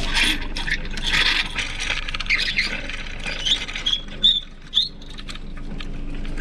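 Rope rubbing and scraping against the Hobie Cat 16's mast base and rigging hardware as the lines are handled, with a few short high squeaks in the second half.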